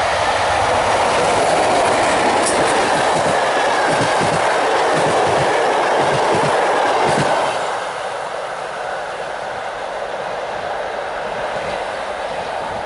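PKP EU07 electric locomotive and its passenger coaches passing close by at speed: a loud rush of wheel and rail noise with the wheels clattering over rail joints. About seven and a half seconds in it drops to a lower rumble as the train moves away.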